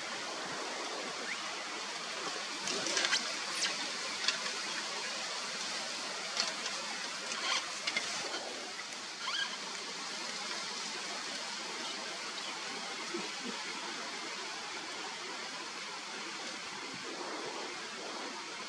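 Steady outdoor hiss, with a scattered run of sharp crackles and snaps in the first half.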